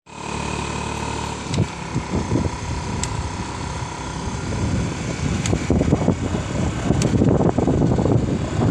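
Motorcycle running along a road, heard from the back seat, with wind buffeting the microphone; the noise grows gradually louder.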